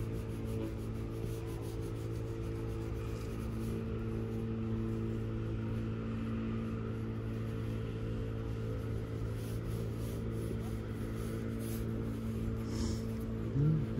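Clutch pencil scratching and rubbing on paper on a clipboard, under a steady low hum.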